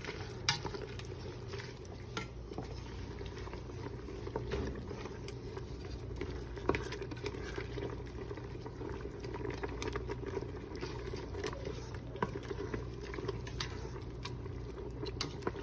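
Creamy Alfredo sauce with spinach and tomato bubbling steadily in a pot on high heat, with scattered small clicks as it is stirred.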